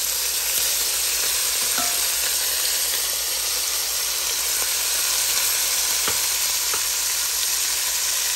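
Chicken legs and chopped bacon sizzling steadily as they sear in hot olive oil and butter, with a few faint ticks over the top.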